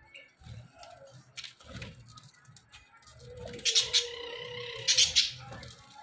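A flock of budgerigars chirping and squawking, with scattered short calls and two loud, sharp calls about four and five seconds in.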